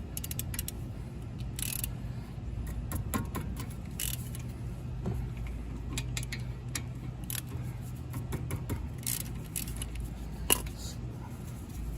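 Scattered metal clicks and clinks of a socket wrench working on the front brake caliper bolts, with a few short hissy bursts over a steady low hum.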